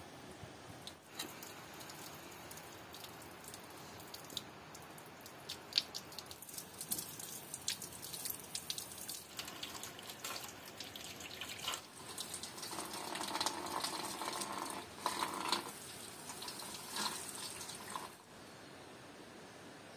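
Water running from an outdoor tap and splashing as raw chicken is rinsed by hand, with scattered drips and splashes. It grows louder about two-thirds in and stops abruptly near the end.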